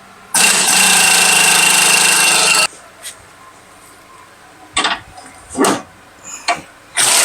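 A power tool with an 18 mm socket runs a sway bar link nut down in a steady burst of about two seconds. A few short knocks follow, and the tool starts running again near the end.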